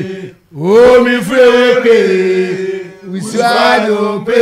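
Men of an Asafo company chanting a song in long, held notes. The chant breaks off briefly about half a second in, and a new phrase starts just after three seconds.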